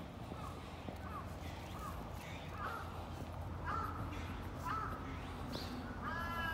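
Crows cawing repeatedly, about one short caw a second, the calls growing louder near the end.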